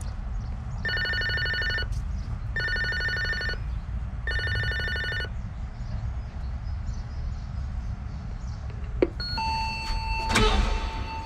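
Apartment-block digital intercom panel ringing a flat: three electronic trilling rings of about a second each. Later comes a click, then the electric door release buzzes with a steady tone, and a thud as the entrance door is pushed open.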